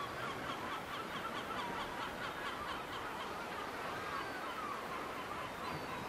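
Gulls calling: a fast run of short repeated notes in the first half, then a few drawn-out gliding calls, over a steady background hiss.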